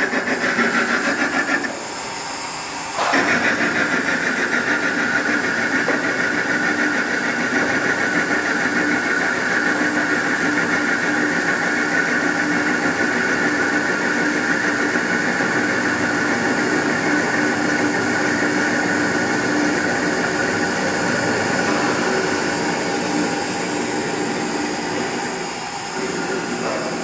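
WEISS WBL290F benchtop metal lathe facing the end of a spinning workpiece: the cutting tool shearing metal over the running spindle, with a steady high tone over a rough grinding noise. The cut breaks off briefly about two seconds in, and the high tone fades and the sound eases a little in the last few seconds.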